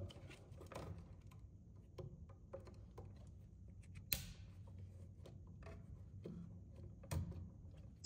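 Faint handling of wires and a device, with a few small sharp plastic clicks, the loudest about four seconds in and another near the end: the lever tabs of a Leviton Decora push-and-click receptacle being opened and clicked down on the neutral wires.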